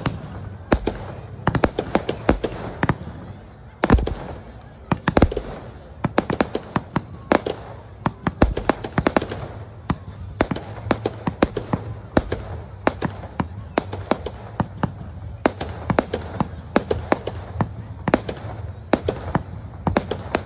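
Aerial fireworks shells launching and bursting in quick succession: a dense string of sharp bangs and crackles, several a second, from a fireworks display.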